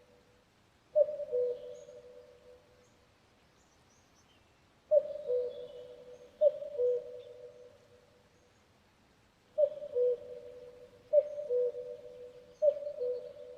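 Common cuckoo calling its two-note "cu-coo," a higher note dropping to a lower one. It calls six times: once, then twice close together, then three times in a row. Faint high chirps of other small birds come in between.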